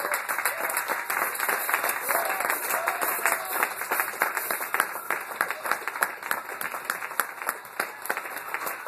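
Audience applauding: dense, irregular clapping from many hands, with a few voices faintly heard in it.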